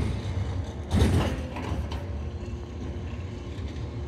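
Recycling truck running with a steady low hum, and a loud mechanical clunk about a second in.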